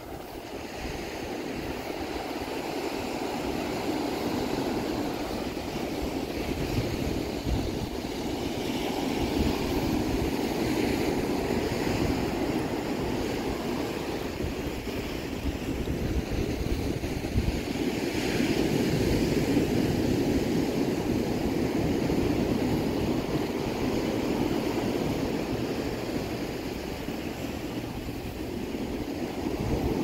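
Ocean surf washing onto a sandy beach, a steady rush that swells louder now and then, with wind buffeting the microphone.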